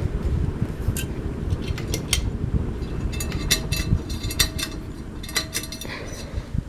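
Hunter Stratford 2 ceiling fan coasting down after being switched off: a low rush of moving air that eases off near the end. Light clinking and ticking from about three seconds in, some with a brief ring like glass or metal.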